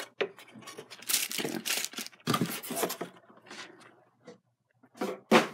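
Toy packaging being handled in irregular bursts of crinkling and rustling, with a louder knock near the end.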